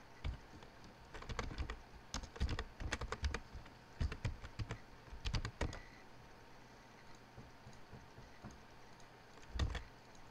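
Typing on a computer keyboard: quick runs of keystrokes for the first six seconds or so, then a short cluster of keystrokes near the end.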